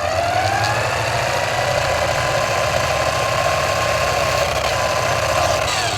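RC car motor whining at speed: it spins up with a rising pitch, holds a steady high whine, then winds down and cuts off near the end.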